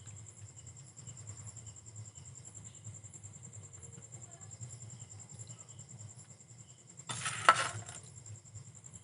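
Quiet background with a low hum and a steady, high, pulsing insect chirr. About seven seconds in there is a brief clatter, the loudest sound.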